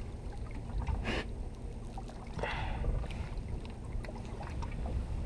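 Water sloshing against the hull of a drifting small boat under a low wind rumble, with two short splashy hisses about one second and two and a half seconds in.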